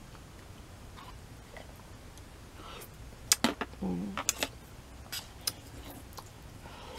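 Eating at close range: a few sharp clicks of utensils against the noodle container, bunched about halfway through, with a brief low hum from the mouth among them.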